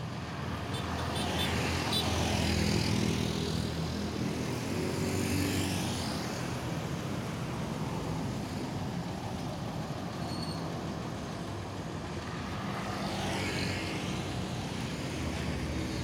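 Bus engine idling steadily with a low hum, while other vehicles pass on the road three times. No horn sounds.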